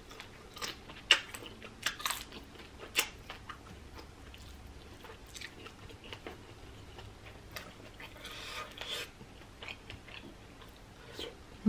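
A person biting and chewing fried seafood close to the microphone, with sharp crackly bites in the first three seconds, then softer, scattered chewing sounds.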